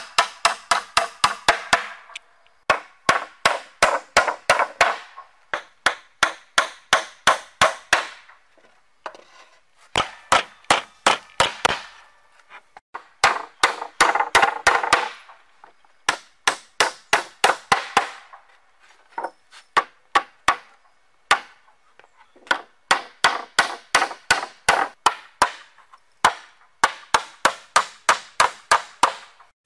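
Steel hammer driving nails into wooden planks and poles, in quick runs of sharp blows about four or five a second, broken by pauses of a second or so.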